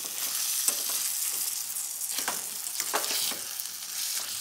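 Sliced tomatoes, onions and green chillies sizzling in butter in a steel saucepan, stirred with a metal spoon that scrapes and clinks irregularly against the pan.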